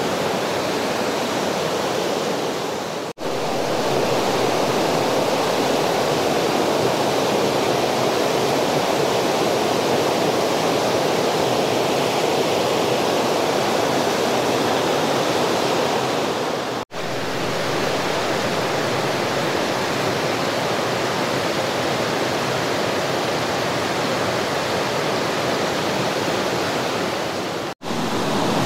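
Fast river water rushing, a steady loud rush with no let-up, broken by three brief drop-outs where the recording cuts.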